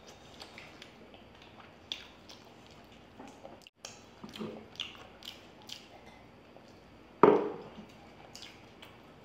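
Eating sounds from two people chewing: quiet wet smacks and small clicks scattered throughout, with one louder, short wet sound about seven seconds in.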